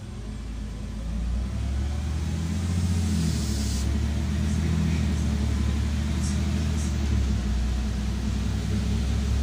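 LiAZ-5292.71 city bus engine heard from inside the passenger cabin: a low, steady drone that grows louder about a second in as the bus gets moving and then holds.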